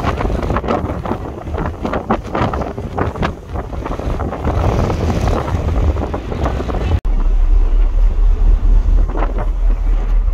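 Strong wind buffeting the microphone on the open deck of a ferry under way, gusting and uneven. About seven seconds in it cuts abruptly to a deeper, steadier wind rumble.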